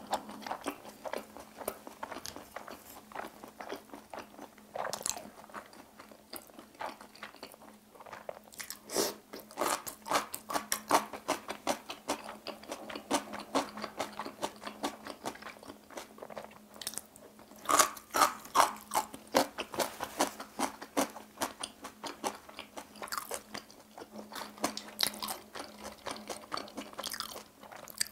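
Close-miked eating: crisp crunching and wet chewing of cubed radish kimchi (kkakdugi) and dumpling, made of many small irregular clicks and crunches, with a louder run of crunches a little past the middle.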